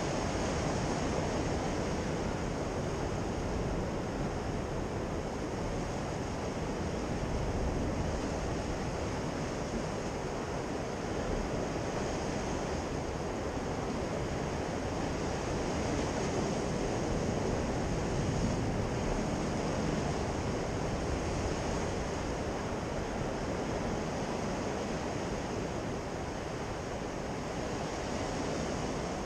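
Sea surf washing against rocky shore: a steady rushing that swells and eases slightly as waves break.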